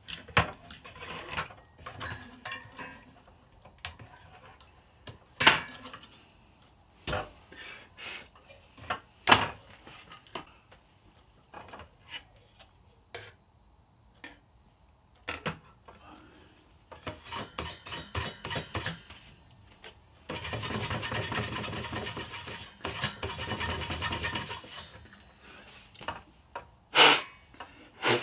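Hands working over a graphics card and its dust-clogged aluminium heatsink: scattered clicks and knocks of parts being handled, then a quick run of ticks and about five seconds of steady scraping past the middle, typical of cleaning dust out of the heatsink fins.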